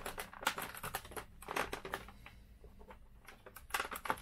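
Plastic clicking and scraping from a Citroën C4 instrument-cluster housing being pried at its snap-in clips, in short clusters of clicks.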